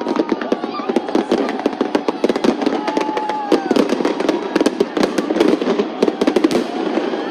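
Fireworks going off in a rapid, dense barrage of sharp bangs and crackles.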